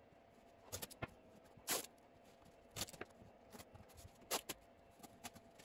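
Wide masking tape being unrolled off the roll and pressed down onto a painted wooden chest: a handful of short, faint rasps, irregularly spaced.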